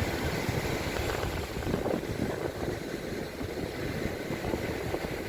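Sea wind buffeting the microphone: a steady, uneven low rush and rumble.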